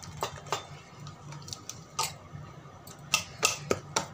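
Besan (gram-flour) batter being beaten by hand in a stainless steel bowl: irregular clicks and slaps of the hand and batter against the bowl, quickening a little after about three seconds.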